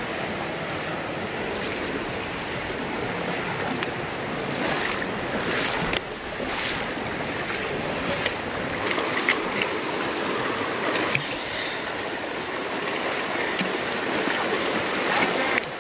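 Virgin River flowing shallow and fast over rocks: a steady rushing wash of water, with a few sharper splashes now and then.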